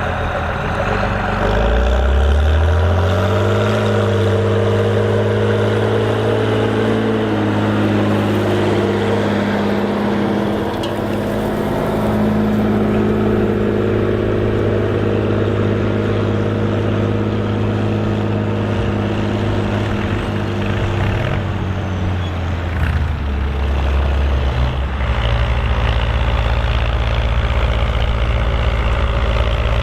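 Old farm tractor's diesel engine pulling a three-furrow plough: it revs up over the first few seconds, then runs steadily under load. Near the end the engine note drops lower and settles into a steady low running.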